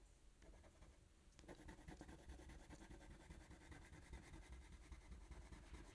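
Faint scratching of a colored pencil on drawing paper, in quick back-and-forth shading strokes.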